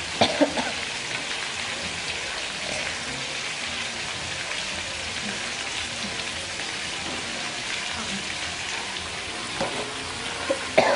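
Duck pieces frying in hot oil in a metal pan, a steady crackling sizzle. A couple of sharp knocks just after the start and a few more near the end.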